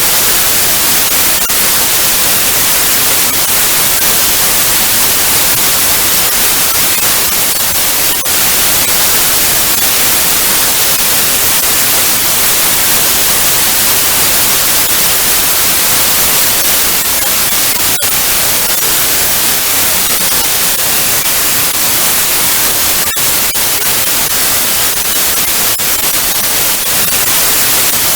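Analog TV static: steady, loud hiss, brightest in the highs, with a few faint crackles.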